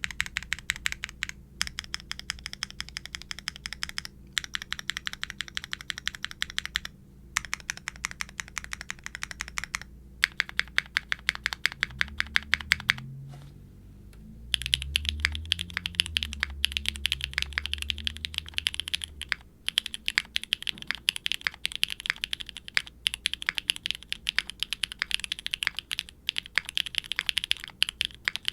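Typing on a QwertyKeys Neo65 mechanical keyboard with Kailh BCP linear switches, a carbon fiber plate, no dampening foam and GMK double-shot ABS keycaps: a sharp, bright, clacky stream of keystrokes. The typing comes in runs with brief pauses and grows faster and denser about halfway through.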